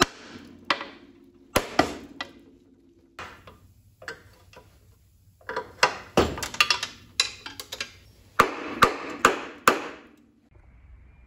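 Steel hammer striking the rusted front spindle at the upper ball joint of a 1964 Chevrolet Impala's front suspension: a series of sharp metal-on-metal blows, some with a short ring. The blows come singly at first, then in two quick flurries in the second half, and stop shortly before the end.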